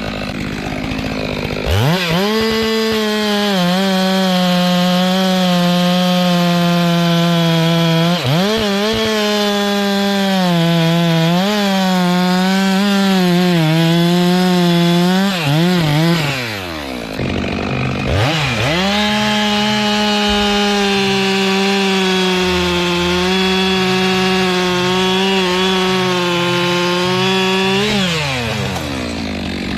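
Stihl two-stroke chainsaw revving up to full throttle and cutting wood, its pitch dipping and wobbling as the chain bogs in the cut. It drops back toward idle about halfway through, revs up again for a steadier run, and falls off near the end.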